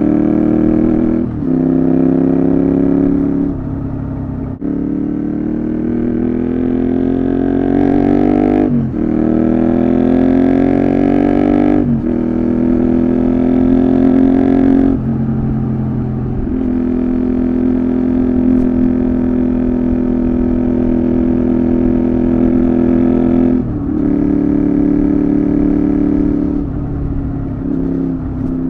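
Honda VTR250's V-twin engine running through a Moriwaki Engineering complete exhaust system under way. The revs climb and drop back sharply several times at gear changes, with a long steady cruising stretch in the middle.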